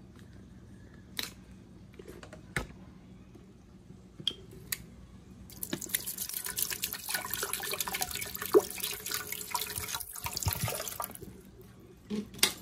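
A few light knocks of a plastic blender pitcher being handled, then water poured into the Ninja blender's plastic pitcher. The water splashes steadily into it for about five seconds from midway and stops about a second before the end.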